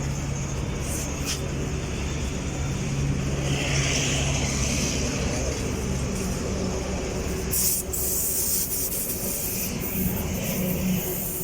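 Air compressor humming steadily while a motorcycle tyre is inflated to 35 psi, with hisses of air; the hum stops about halfway through, and a short sharp hiss comes near eight seconds in.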